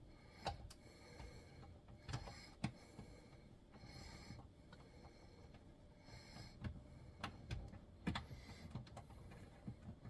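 Faint, scattered clicks and taps of hands fiddling with a wiring plug and trim at a car's roof, with soft rustling in between.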